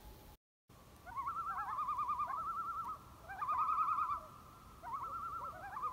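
Common loons giving their wavering tremolo call, several quavering laughs overlapping. The calls come in three bouts, starting about a second in.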